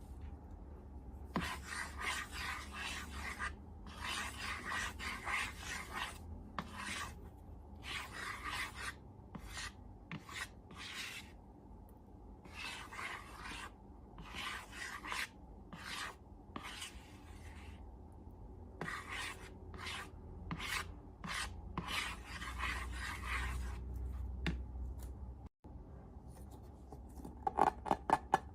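Repeated rasping rubbing strokes, each about a second long with short pauses between them; near the end a quicker run of sharper, louder strokes begins.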